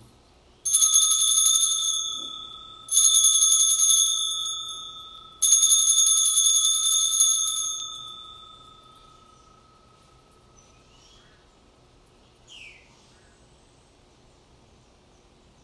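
Altar bells rung three times at the elevation of the consecrated host. Each ring starts with a brief jangle and leaves a bright ringing tone that carries over into the next. The tones fade away over several seconds after the third ring.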